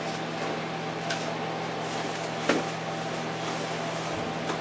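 Microwave oven running with a steady hum as it cooks bacon, with a few light clicks and knocks; the loudest click comes about two and a half seconds in.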